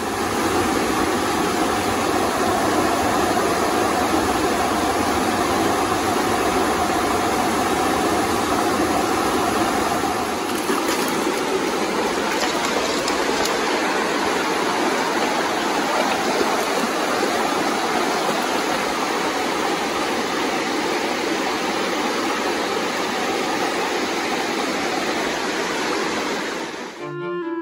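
Mountain river rushing over rocks: a steady, loud wash of whitewater.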